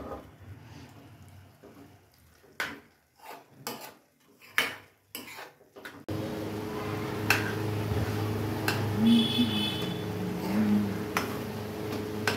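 A steel spoon scraping and clicking against an aluminium kadhai while stirring grated carrots cooking in milk. About halfway a steady low hum comes in under the continuing spoon scrapes.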